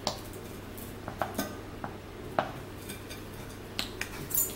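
A plastic squeeze bottle of sauce being opened and tipped over a plate: a handful of short sharp clicks and light knocks, the loudest at the very start and about halfway through, with dishes clinking.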